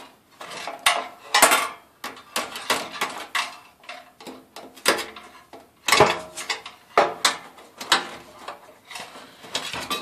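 Irregular metallic clinks, taps and scraping as a screwdriver and wires are worked against the sheet-metal burner housing of a torpedo kerosene heater to pull out the old ignition coil's spark plug lead.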